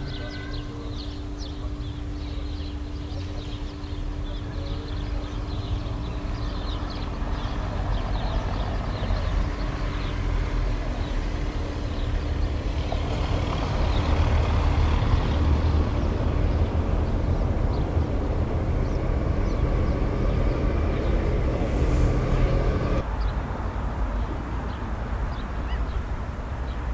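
Low engine rumble, growing louder toward the middle, with a steady hum that stops suddenly near the end.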